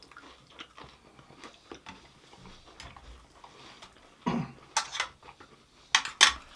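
Close-miked eating: soft chewing and small mouth clicks, then, about four seconds in, a few loud, sudden sharp sounds, the first of them like a cough.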